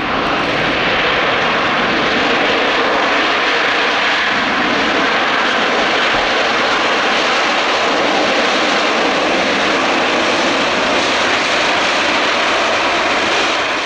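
Antonov An-124's Progress D-18T turbofan engines running: a loud, steady, even noise with a faint steady whine through it.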